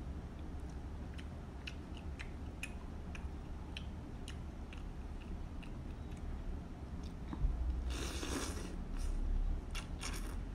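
A person chewing instant noodles close to the microphone, with small wet mouth clicks. About eight seconds in, and again near the end, come louder slurps as mouthfuls of noodles are drawn in.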